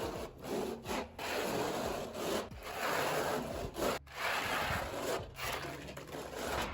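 Repeated back-and-forth scraping strokes on a hard surface, each under a second long with short irregular breaks between them.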